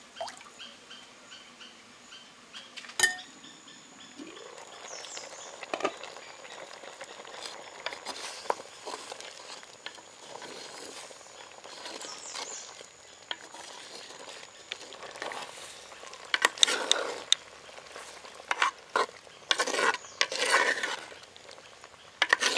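A wooden spoon stirring boiled potato slices in a clay pot of curry, scraping and knocking against the pot in short strokes, loudest near the end. There is a single sharp knock about three seconds in.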